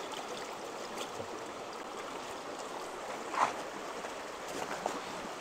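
Shallow rocky stream rushing steadily, with a short splash about three and a half seconds in as a rubber sluice mat is lifted out of a bucket of rinse water.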